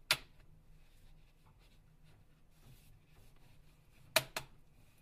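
Phone parts being handled as the display assembly is separated from the unibody by hand: one sharp click just after the start and two quick clicks about four seconds in.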